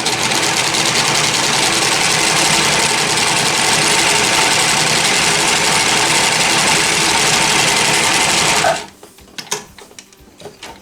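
Janome L393 sewing machine running at a steady speed, sewing its serger-type overcast stitch through two layers of denim, then stopping suddenly about nine seconds in; a few faint clicks follow.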